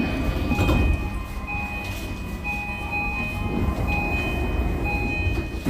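Repeating electronic chime on a Nanbu Line commuter train at the platform, pulsing about once a second over the low rumble of the stopped train, with a sharp thump at the very end.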